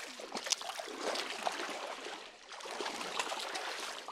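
Creek water running and gurgling, with small irregular splashes.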